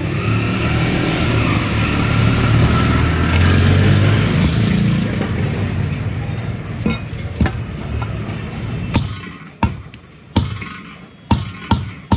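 A motor vehicle engine running close by, loudest in the first half and then fading. It is followed by a series of sharp knocks, about one to two a second, from a steel meat cleaver striking meat on a wooden chopping block.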